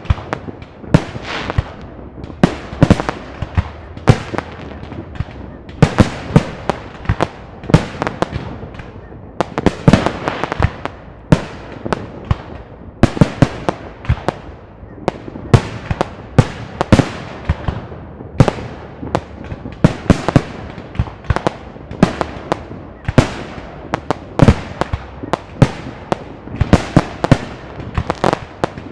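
Fireworks display: a rapid, continuous barrage of shell bursts, several sharp bangs a second, each trailing off in echo.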